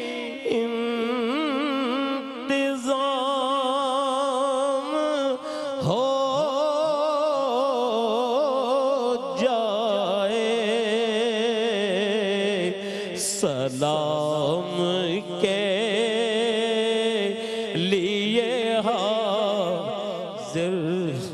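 An elderly man's voice singing an Urdu naat into a microphone in long, drawn-out melismatic phrases. The held notes waver with heavy vibrato, in a slow chant-like delivery.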